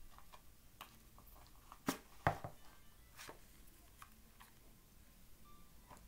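Cornstarch chunks crunching as they are bitten and chewed: scattered sharp crunches, the two loudest close together about two seconds in.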